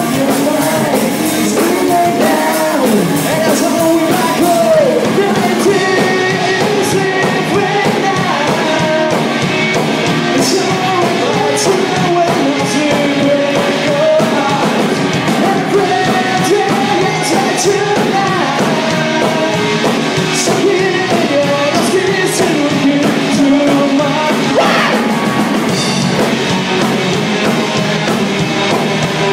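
A live rock band playing loudly: electric guitars and drum kit with repeated cymbal hits, and a man singing into the microphone over them.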